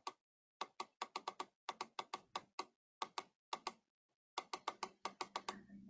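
Faint typing on a computer keyboard: irregular clusters of short key clicks, busiest near the end.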